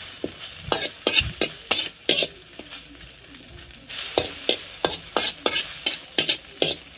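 Perforated metal spatula scraping and tapping against a metal wok as instant noodles are stir-fried, over a steady light sizzle. The noodles are frying as the last of the cooking water boils off. The scrapes come in quick runs, with a quieter stretch of mostly sizzle in the middle.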